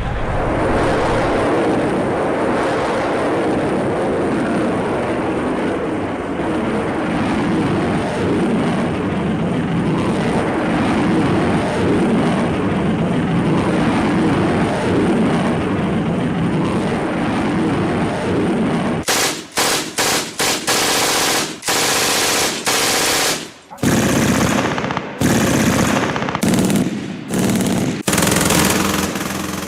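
A continuous dense din for about the first two-thirds, then machine-gun fire in a string of short bursts, each up to about a second and a half long, with brief gaps between them.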